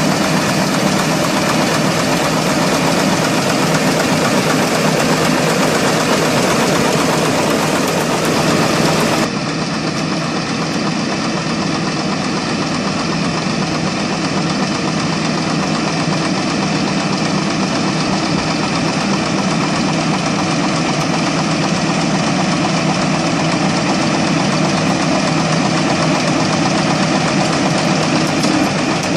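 Farm machine engine running steadily under a pruning attachment. About nine seconds in the sound changes abruptly, becoming a little quieter and duller.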